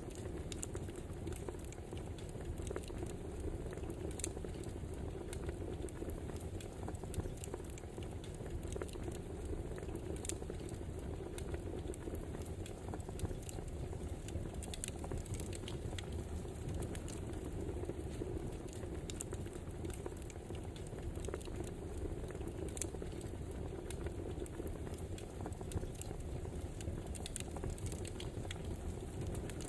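Wood fire burning: a steady rush with irregular sharp crackles and pops.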